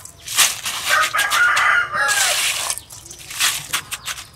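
Hands swishing and rubbing shrimp in a stainless steel bowl of water and ice, splashing in several bursts. A rooster crows once about a second in.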